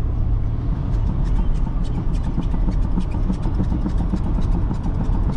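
Car engine and road noise heard from inside the cabin while driving: a steady low rumble, with faint rapid ticks from about a second in.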